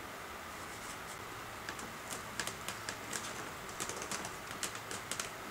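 Faint irregular clicks and creaks of a foam RC jet's vertical stabilizer fin being handled and pressed into its slot in the fuselage, starting a bit under two seconds in.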